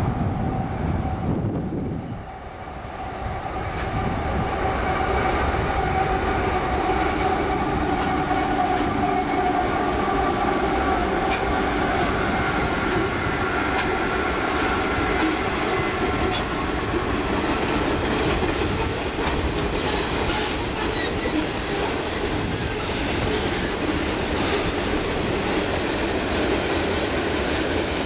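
CSX diesel freight locomotives passing close by with their engines running, then freight cars rolling past, with clicks of wheels over the rail joints in the later part. The sound dips briefly about two seconds in.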